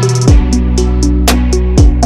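Background music with a steady beat: a deep kick drum that drops in pitch, heard twice, over held bass notes, with quick ticking percussion about four times a second.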